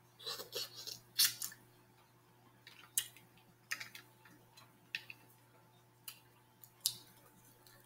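Someone eating mussels up close: a series of short wet smacks and sharp clicks, roughly one a second, from chewing and handling the mussel shells.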